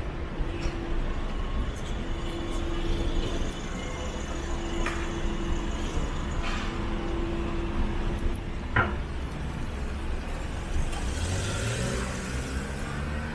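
Road traffic: a steady low rumble of vehicles, with one engine rising in pitch near the end as a vehicle accelerates past. A single sharp click about two-thirds of the way through.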